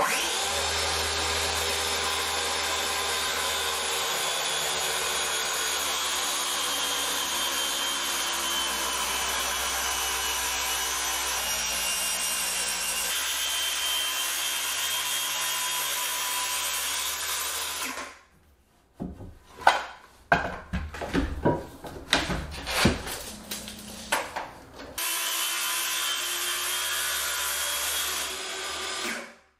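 Handheld circular saw ripping a thick birch butcher-block slab along a guide board, running steadily under load for about 18 seconds before cutting off. Then irregular wooden knocks and clatter, and a second shorter run of the saw near the end.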